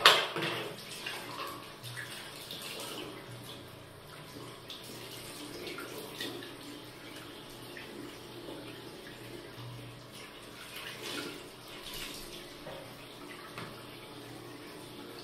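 Water from a tap running into a washbasin while a sponge scrubs the basin, with one sharp knock right at the start.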